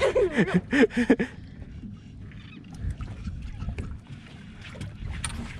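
Wind on the microphone and water sloshing against a small open boat's hull, a steady rush with a low rumble and a few faint clicks.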